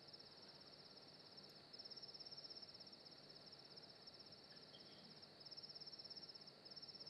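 Faint cricket chirping, a fast pulsed trill that breaks off briefly every second or few, over a low hiss; a sound effect in a stage play's soundscape.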